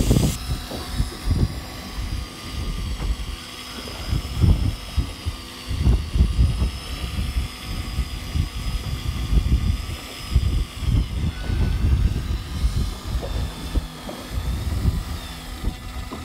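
Electric fishing reel's motor whining as it winds in a hooked fish, its pitch wavering slightly, with gusts of wind buffeting the microphone.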